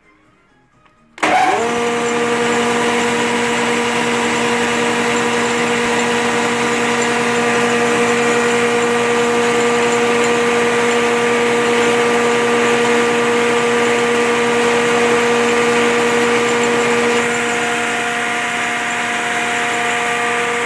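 A DYMB 8 thickness planer from 1991 is switched on about a second in. Its motor comes up to speed almost at once and runs steadily with a hum and several steady tones. Near the end the tone changes and it gets slightly quieter.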